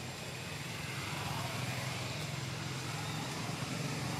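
Steady low engine rumble with a hiss above it, getting a little louder about a second in.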